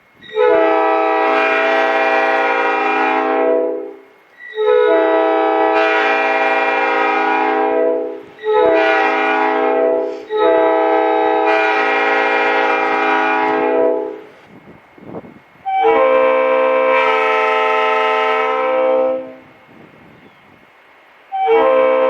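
Nathan Airchime P5 five-chime locomotive air horn sounding a steady multi-note chord in blasts: long, long, short, long (the grade-crossing signal), then after a short pause one more long blast. A new blast starts right at the end.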